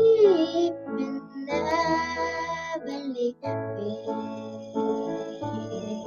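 A young girl singing a slow song, holding long notes over an instrumental accompaniment.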